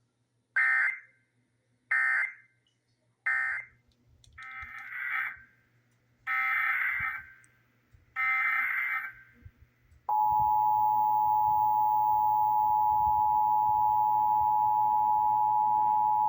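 Emergency Alert System digital data bursts: three short squawks, the end-of-message code closing one station's test, then three longer squawks, the SAME header opening the next station's Required Monthly Test. About ten seconds in, the steady two-tone EAS attention signal starts and holds.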